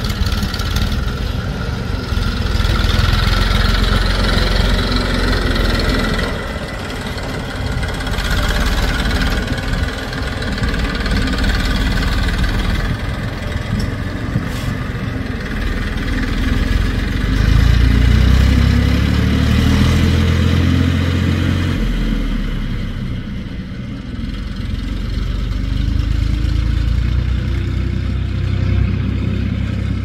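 Diesel engine of a backhoe loader running as it works, revving up and easing off several times, loudest a little past the middle.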